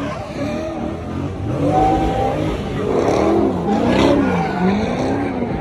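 Car engine revving hard during a burnout, its pitch rising and falling several times, over the noise of spinning tyres.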